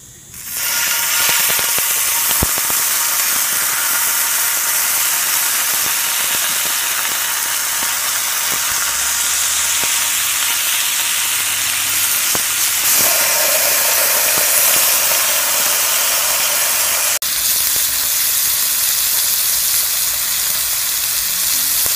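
Raw bacon strips sizzling as they are laid into a hot nonstick frying pan: a steady frying hiss that starts about half a second in, with a brief dropout about three-quarters of the way through.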